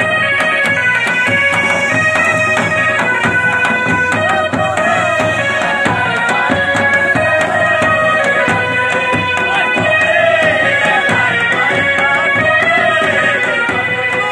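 Live Pahari folk band playing dance music: drums beat a steady rhythm under a wind instrument playing a held, stepping melody.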